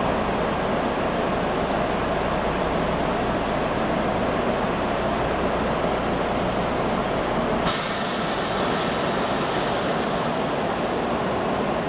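SEPTA Silverliner electric commuter train moving slowly past the platform, giving a steady running rumble. About eight seconds in, the low rumble drops away and a sudden hiss of air starts, lasting a couple of seconds before fading.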